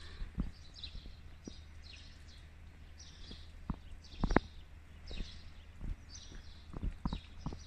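Small birds chirping over and over in short, high calls, with scattered sharp taps, the loudest about four seconds in.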